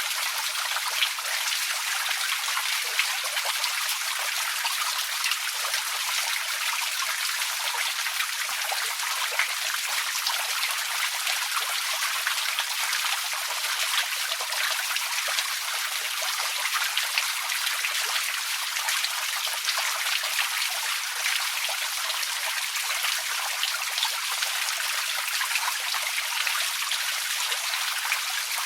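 Outdoor water fountain running steadily: falling water splashing with a constant hiss and a fine patter of drops.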